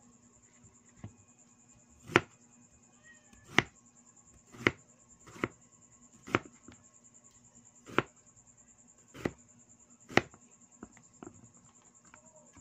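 Cleaver slicing a cucumber into rounds on a cutting board: about eight sharp knocks of the blade on the board, roughly one a second, with a few lighter taps near the end.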